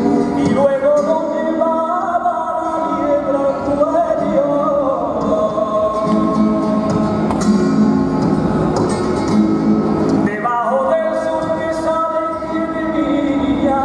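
Male flamenco cantaor singing long, bending melismatic lines over a flamenco guitar accompaniment. The voice stops about five seconds in, leaving the guitar playing alone, and comes back in near the end.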